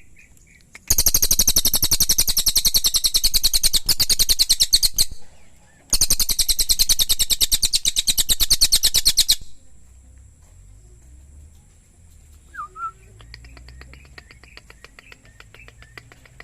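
Cililin songbird singing: two long, loud, very high, rapid trills of about four and three and a half seconds, then a faint run of quick chips near the end.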